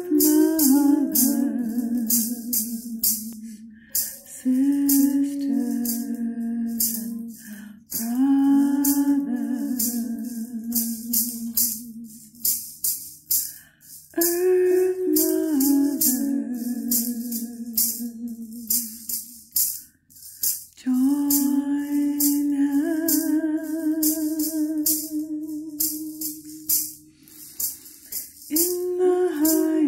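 Music: a voice singing long wordless phrases, several sliding downward in pitch, over a shaker rattled in a steady beat of about two shakes a second.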